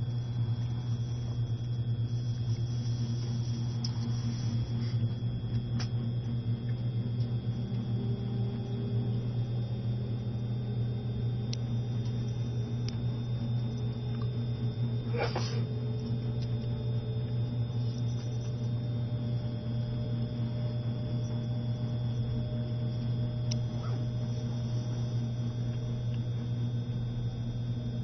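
Steady running noise inside an E653 series electric train moving slowly, with a constant low hum. Faint motor whine tones slowly rise in pitch as it creeps along.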